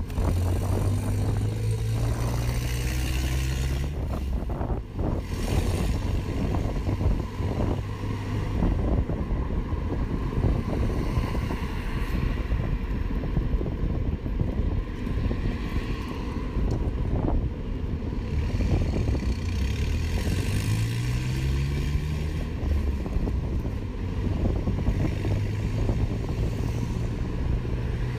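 City street traffic and road noise heard while riding along the road: a steady low rumble. A low hum rises in pitch twice, once near the start and again about two-thirds of the way through.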